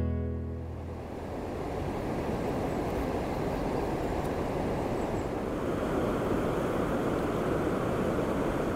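Steady rush of water pouring over a big River Thames weir, running high and powerful after heavy rain. The end of an acoustic guitar tune fades out in the first second.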